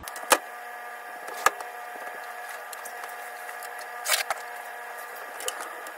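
Items being handled at a bed: a few light knocks and clicks, and a brief rustle about four seconds in, over a steady faint buzzing hum.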